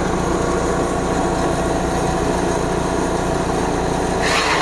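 Engine-driven forage chopper running steadily at speed while it chops grass, with a brief burst of louder rasping noise about four seconds in.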